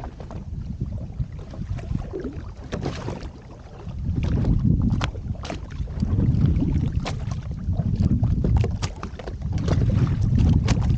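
Wind buffeting the microphone in gusts on a small boat out on the water, with many short sharp knocks and slaps scattered through.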